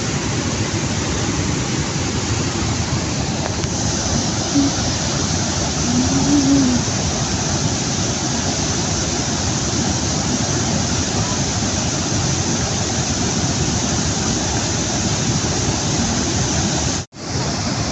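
Steady rushing of a waterfall, an even roar of falling water, cutting out for an instant near the end.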